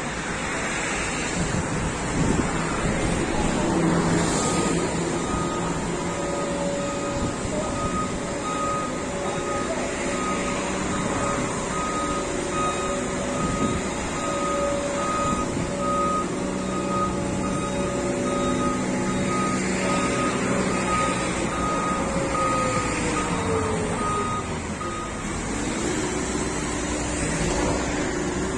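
Asphalt road roller's reversing alarm beeping at an even pace over its diesel engine running. The beeping stops and the engine note drops a few seconds before the end.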